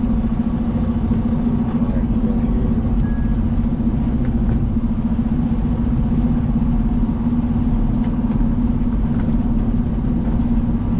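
Semi truck's diesel engine running with a steady low hum.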